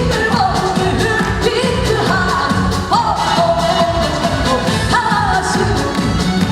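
Korean trot song performed live: a woman singing with wavering, sliding notes over a band backing with a steady beat.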